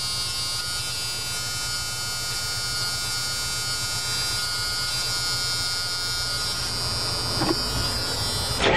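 Steady electrical buzz while the glow plugs of a 1985 Ford E350's 6.9L diesel are heated through the manual glow plug switch, with the glow plug light lit. Right at the end the starter begins cranking the engine.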